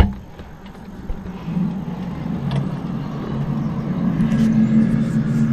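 A low droning hum from outside, holding two or three steady pitches, the unexplained 'strange sound in the sky' that he has been hearing; it swells gradually louder. A sharp click at the very start.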